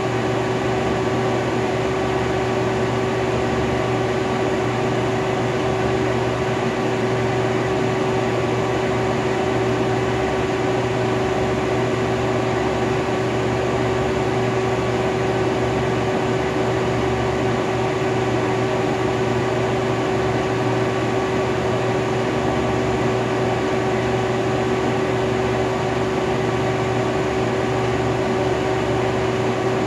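Robinair A/C recovery and recharge machine running one of its automatic cycles, its pump giving a steady hum with a constant tone.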